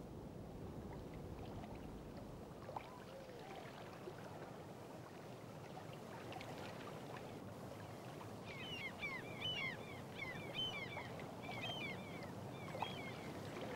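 Evening lakeside ambience: a low steady wash of water and open-air background, with small birds chirping in quick clusters of short high calls from about two-thirds of the way through.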